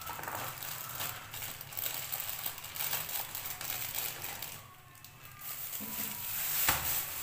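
Plastic bags crinkling and rustling as they are handled, with a short lull a little past the middle and a single knock near the end.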